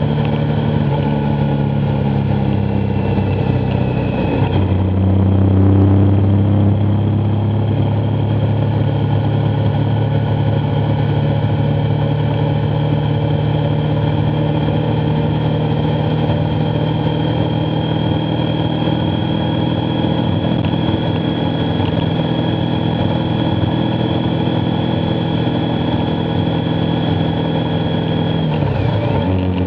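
Motorcycle engine running at road speed, heard from the bike over a steady rush of noise. About four and a half seconds in its pitch drops and then holds steady, and near the end it dips briefly and climbs back, as with gear changes.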